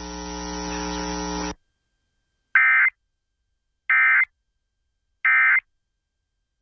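Emergency Alert System end-of-message data bursts: three short, identical warbling digital chirps about a second and a quarter apart, marking the end of the alert. Before them, a steady buzzing hum cuts off about a second and a half in.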